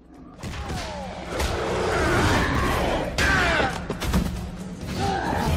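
Cartoon fight-scene soundtrack: dramatic music over heavy thuds and impacts, with the fighters' strained grunts as they grapple.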